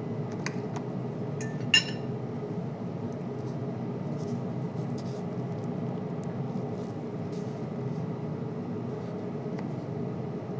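Kitchen utensils clinking and tapping against cookware and a plastic container while food is packed, with one sharp ringing clink about two seconds in, over a steady low hum.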